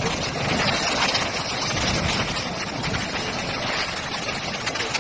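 Heavy surf breaking against rock cliffs, with churning whitewater rushing through the cove and spilling off the rock ledges: a loud, steady roar of water that swells slightly a couple of times.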